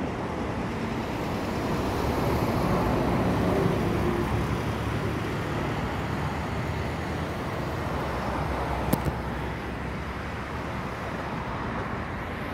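Road traffic noise, with a passing vehicle swelling a couple of seconds in and fading. A single short click comes near the end.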